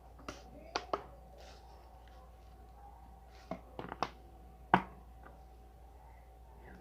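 A few sharp taps and clicks of objects being handled, in two small clusters, the loudest a single knock about two-thirds of the way through.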